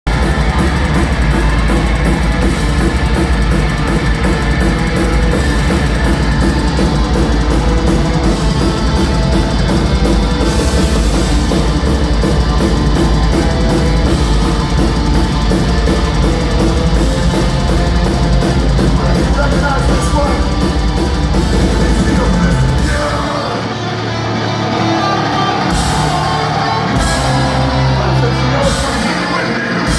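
Metalcore band playing live, with distorted electric guitars, fast heavy drumming and vocals. About three-quarters of the way in, the dense low drumming drops out and the music turns into stop-start low riffs.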